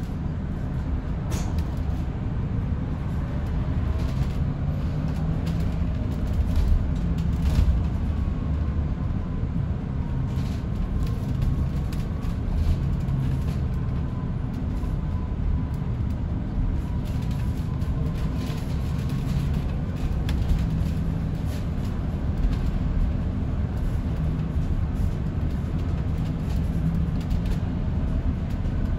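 Inside an Alexander Dennis Enviro400EV battery-electric double-decker bus on the move: a steady low road and tyre rumble with scattered light rattles and knocks. A faint electric-drive whine falls and then rises again in pitch as the bus changes speed, about a third of the way in.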